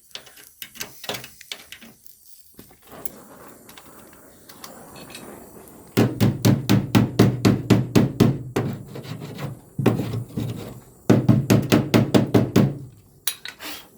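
Welding on car-body sheet metal to fill pinholes in a patch: two bursts of crackling welding, the first about four seconds long and the second about two, after a few seconds of faint rubbing.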